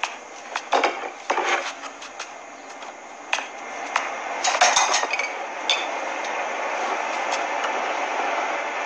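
Glass jars clinking and knocking as they are handled and set down on a refrigerator's wire shelf, a cluster of sharp clinks about four to six seconds in. Then a steady noise that slowly grows louder.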